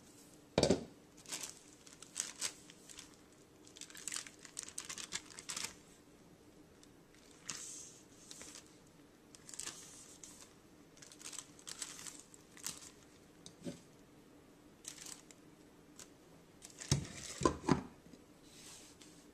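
Plastic boil-in-bag rice pouches crinkling in scattered bursts as they are handled in a pot of hot water. A metal pot lid knocks about a second in, and clanks twice near the end as it is set back on the pot.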